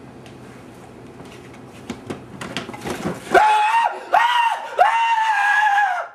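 High-pitched human screaming, three loud drawn-out cries that start about three seconds in and cut off suddenly, after a few seconds of quiet room noise with faint knocks.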